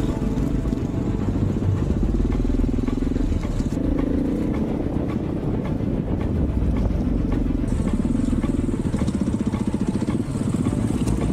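Off-road motorcycle engine running along a dirt trail, its pitch rising and falling in repeated surges as the throttle is opened and closed, with scattered light clicks.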